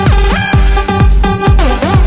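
Electronic dance music with a steady kick drum, about two beats a second.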